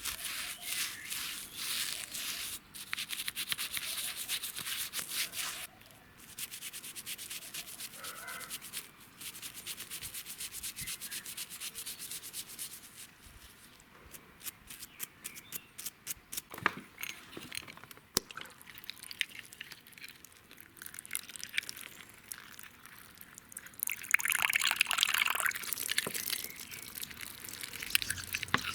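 An old cup being sanded by hand: rapid abrasive rubbing strokes in two long runs with a short pause between. After that the sanding gives way to scattered clicks and taps, and a louder burst of noise comes near the end.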